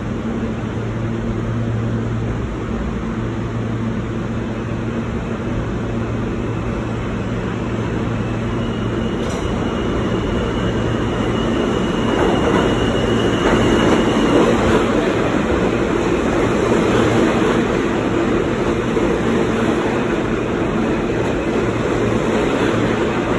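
New York City subway F train approaching through the tunnel and pulling into an underground station, its rumble building from about halfway and staying loud as the cars run in along the platform. A thin high whine sounds for several seconds in the middle.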